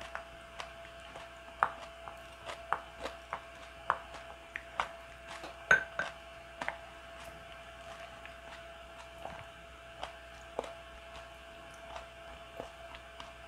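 Wooden spoon clicking and scraping against a ceramic bowl while stirring thick rice porridge: irregular light taps, more frequent in the first half.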